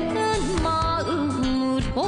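A Korean-language song: a singer's voice bending between notes and holding a long note, over instrumental backing.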